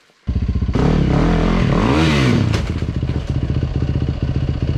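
Yamaha WR-series enduro bike's single-cylinder four-stroke engine revving, rising and falling in pitch, with clattering as the bike goes down on the rocky trail. From about three seconds in it settles to a steady idle while the dropped bike lies on its side.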